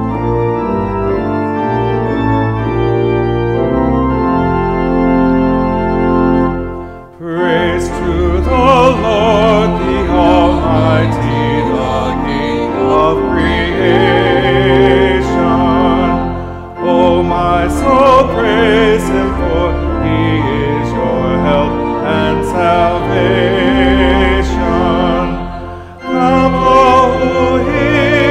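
Church organ playing the opening chords of a hymn alone, then a singing voice with strong vibrato comes in over the organ about seven seconds in, with short breaths between phrases.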